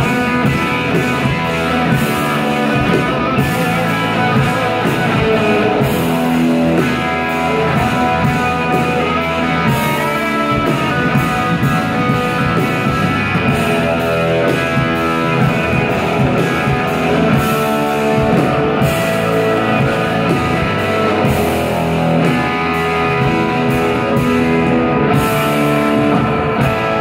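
Live rock band playing an instrumental passage: electric guitar leading over drums with steady cymbals, with no singing.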